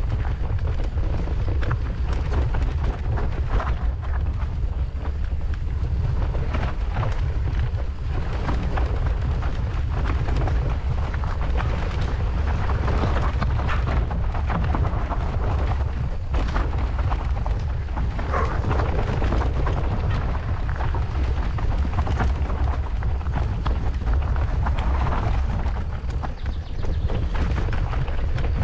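Mountain bike ridden fast down a rough, rocky enduro trail: a continuous clatter of tyres, frame and chain knocking and rattling over rocks and roots, over a heavy low rumble of wind and jolting on the camera's microphone.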